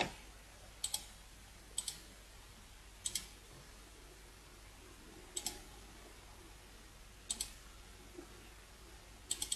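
Computer mouse clicking about six times, a second or two apart, each click a quick pair of ticks as the button goes down and comes back up, with a short knock right at the start.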